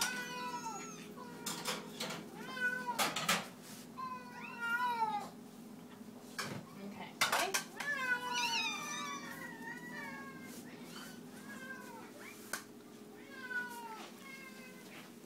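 Hungry cats meowing over and over at feeding time, their calls rising and falling and sometimes overlapping, with a few sharp clatters of dishes among them. A steady low hum runs underneath.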